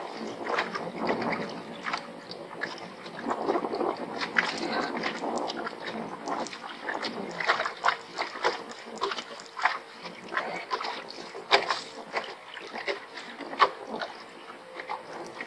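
Small waves lapping and slapping against the boat's hull: an irregular run of splashy knocks and clicks.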